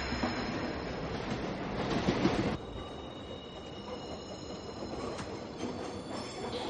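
Subway train running on the rails, with a steady high-pitched wheel squeal over the rumble. The loud noise drops off suddenly about two and a half seconds in, leaving quieter train noise.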